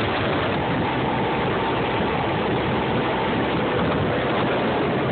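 Outboard motor running at speed, mixed with water rushing in the boat's wake: a steady, even noise that holds the same level throughout.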